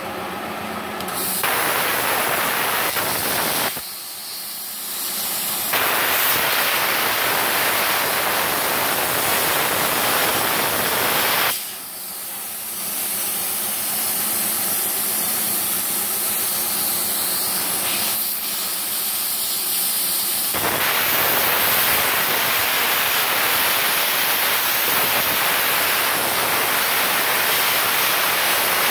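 Air plasma cutter (MultiPro CUT65 G-SB, set to 65 amps) cutting steel plate: a loud, steady hiss of the plasma arc and compressed air. It starts about a second in and dips briefly three times before running on.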